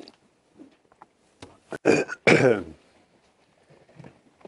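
A man clearing his throat twice in quick succession, loud and pitched, about two seconds in, just after a short sharp click.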